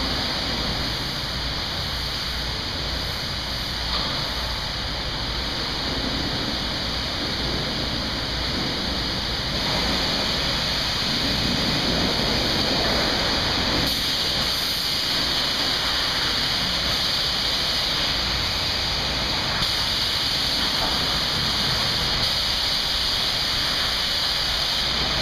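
High-pressure water spray washing down a truck: a steady hiss and rush of water that grows a little louder about ten seconds in.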